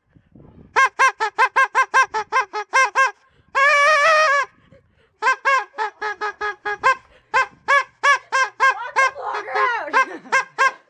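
Party horn noisemakers tooting in quick runs of short blasts, about six a second, with a longer held blast about four seconds in.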